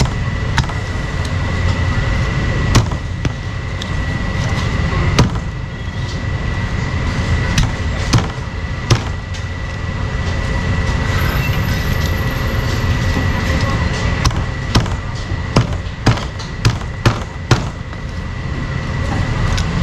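Cleaver chopping cooked meat on a wooden chopping block: sharp knocks at irregular intervals, then a quick run of strokes at about two a second near the end, over a steady rumble of market and traffic noise.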